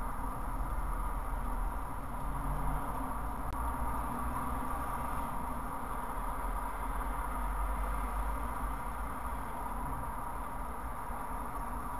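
Steady low rumble of a stationary car's engine idling, heard from inside the cabin through a dashcam microphone.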